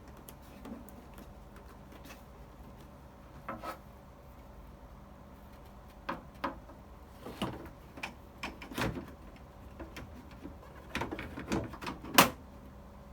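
Clicks and knocks of a replacement filter and its plastic housing being handled and fitted. A pair of taps comes early, the clicks grow frequent about halfway through, and one sharp snap near the end is the loudest.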